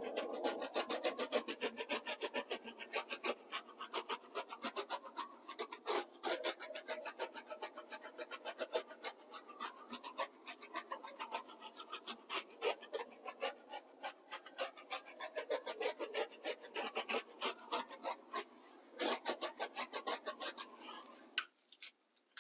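Handheld torch flame hissing steadily with rapid crackling as it is passed over a wet acrylic pour. It cuts off suddenly near the end.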